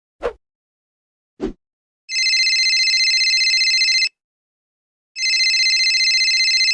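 Telephone ringing sound effect: two rings of about two seconds each with a pause of about a second between them, each a high, fast-fluttering tone. Two short knocks come before the rings.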